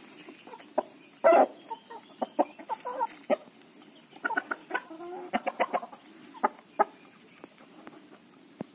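Desi chickens clucking in short separate calls while feeding, with one louder call about a second in and a run of quick clucks in the middle.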